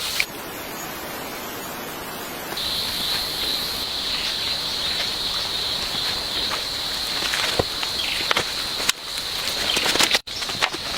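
Insect chorus, a steady high buzz that comes in a couple of seconds in and carries on, with scattered short crackles and rustles over it.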